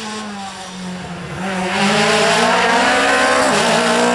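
A Peugeot 208 rally car's four-cylinder engine running at high revs as the car approaches, growing much louder from about a second and a half in, with a short dip in revs near the end.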